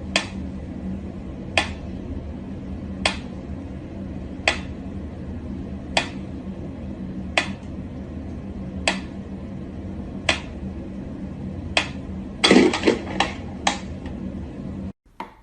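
Sharp, light clicks of something hard, evenly spaced about every second and a half over a steady low hum. A quick flurry of louder knocks comes near the end.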